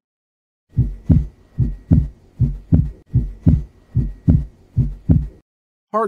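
Recorded heartbeat: six lub-dub pairs at about 75 beats a minute. In each pair the first heart sound (S1, closure of the mitral and tricuspid valves) is followed closely by the second (S2, closure of the aortic and pulmonic valves).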